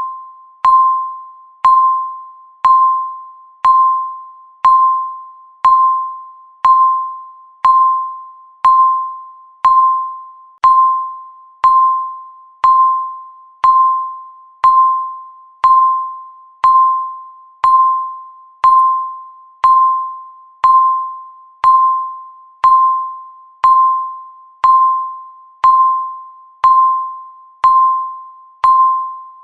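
Countdown timer's tick sound: a short, bell-like ding struck once a second, each one sharp at the start and fading away before the next.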